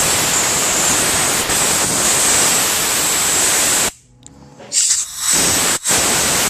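Compressed air hissing through a 2003 Yamaha RX-1 snowmobile carburetor, blowing out the needle-and-seat passage to clear any varnish or dirt that would make the needle stick and flood the carb. One long blast of about four seconds, then after a short pause two shorter blasts.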